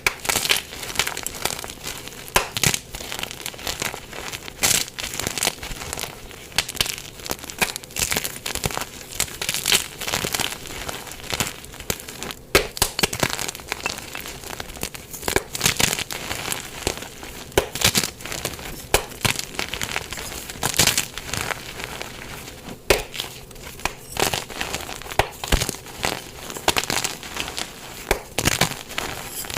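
Dyed blocks of gym chalk being crushed by hand, a dense run of crisp, irregular crunches and crackles as the blocks break and crumble.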